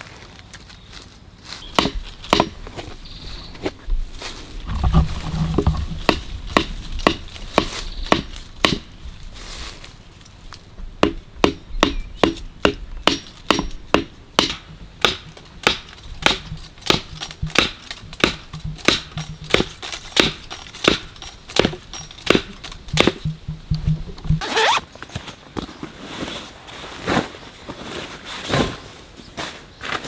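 A long run of sharp knocks or taps, irregular at first and then coming at roughly two a second through the middle, like hand work on wood.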